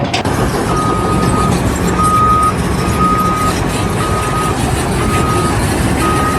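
A vehicle's reversing alarm beeping about once a second, a single steady tone, over a running engine.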